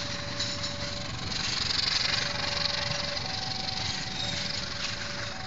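Passenger train coaches rolling past on the rails with a steady rumble and hiss, while the level-crossing warning signal sounds two alternating tones, switching about once a second.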